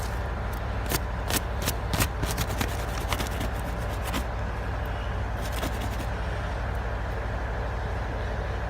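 Drilling rig machinery running with a steady low drone. Scattered sharp clicks and knocks in the first few seconds.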